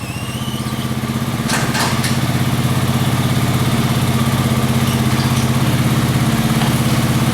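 Honda Rancher 350 ATV's single-cylinder four-stroke engine running steadily just after a top-end rebuild, getting louder over the first couple of seconds and then holding an even note.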